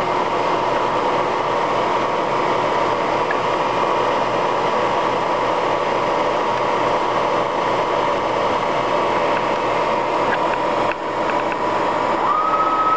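Lagun FTV-2S knee-type vertical mill running with its spindle turning at about 2100 RPM, a steady mechanical hum with a held whine, while the servo-driven table moves the pen through the program. Near the end a second, higher whine rises and holds.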